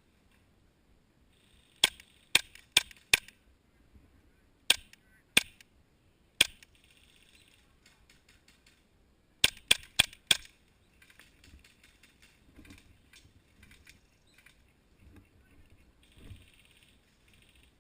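Airsoft guns firing semi-automatic shots: eleven sharp cracks in three quick groups, four, then three, then four.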